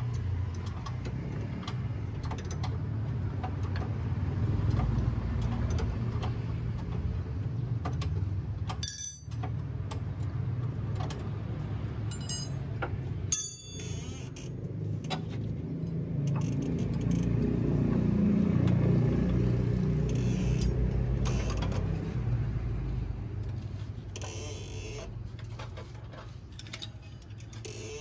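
Low, steady motor vehicle rumble that swells for a while around the middle, broken twice by short cuts.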